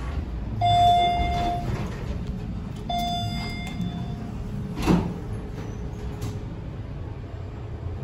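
Elevator chime sounding twice, a single held tone each time, about two seconds apart, over the low steady hum of the elevator cab. The chime is a replacement, not the original Dover Traditional chime. A sharp thump comes about five seconds in.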